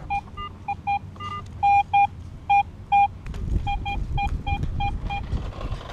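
Metal detector beeping in short, irregular tones as its search coil is passed over a buried metal target, signalling the target's spot. Most beeps share one pitch, with a couple of higher ones near the start, and they stop about five seconds in.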